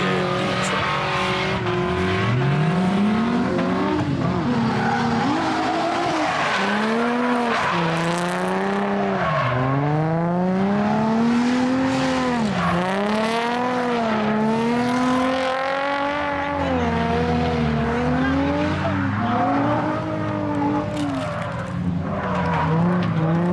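Drift cars sliding around a cone course: an engine revs up and falls back again and again as the throttle is worked through the slides, with tyres squealing.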